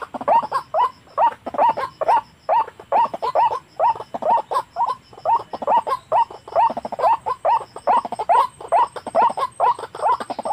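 White-breasted waterhen calling: a long unbroken run of short, hoarse, upward-sliding notes, about three a second.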